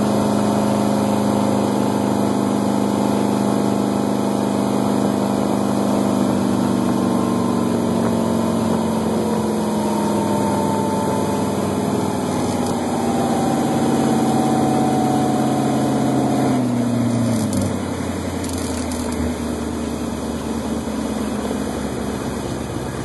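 Wellcraft 192 runabout's engine running under way, its pitch sagging slowly as the boat eases off. About seventeen seconds in it is throttled back sharply to a lower, steady running note.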